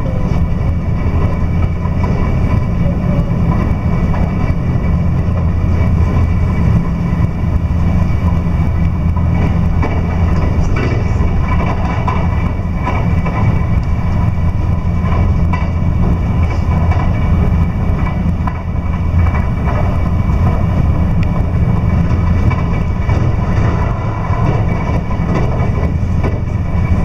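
Cabin noise of an electric passenger train running along the line: a steady low rumble from the wheels on the rails and the running gear, with a few faint steady tones above it.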